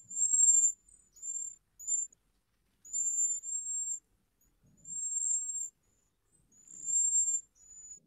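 Recorded bird song played back: a bird singing very high, thin notes in about seven short phrases, each under a second, with short gaps between them.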